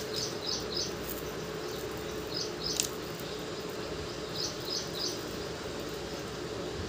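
High, short chirps in groups of three, repeating every two seconds or so, over a steady low hum; a single sharp click about halfway through.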